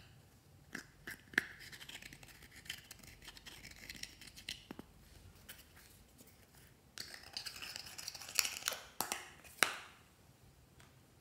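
A metal tool scraping and gouging pressed powder eyeshadow out of a palette pan. It comes as dry, scratchy rasps with sharp clicks of metal on the pan, in two spells: the first about a second in and the second about two-thirds through.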